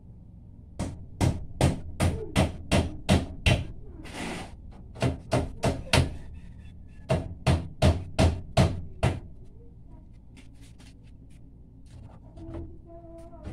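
Hammer nailing plywood formwork boards: three runs of quick, even blows, about three a second, with a brief scrape after the first run. Lighter, fainter taps follow near the end.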